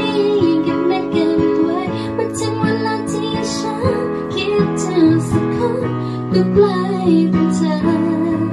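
A young woman singing a melody to piano accompaniment, the piano holding sustained chords under her voice.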